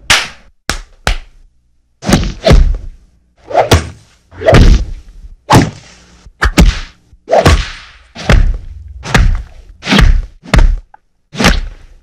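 Cinematic fight sound effects: a quick, uneven series of about eighteen punch and blow impacts, sharp thwacks, several with a short swish or rumbling tail.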